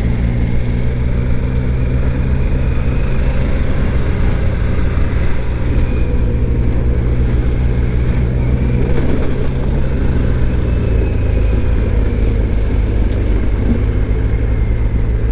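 Harley-Davidson Pan America's Revolution Max 1250 V-twin running at a steady low road speed on a dirt road, a constant rumble with a rush of wind and tyre noise over it.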